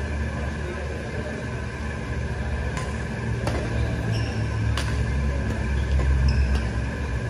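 Badminton rally: four sharp racket-on-shuttlecock hits, roughly a second apart, starting about three seconds in, with brief squeaks of court shoes between them. A steady low hum runs underneath and is the loudest sound.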